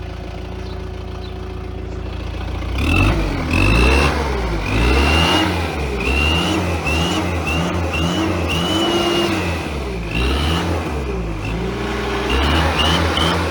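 Turbocharged skid steer diesel engine idling, then revved up and down over and over from about three seconds in. A bolt-on turbo whistle adds a high whistle that rises and falls with the revs.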